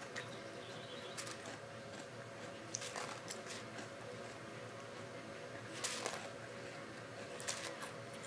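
Faint, scattered small clicks and crackles over a steady hum: chocolate crisp rice cereal being picked up and crunched straight off a plate with the mouth.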